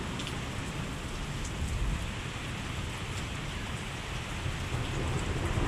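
Steady rain falling in a severe thunderstorm, an even hiss with a low rumble underneath and a few faint drop ticks.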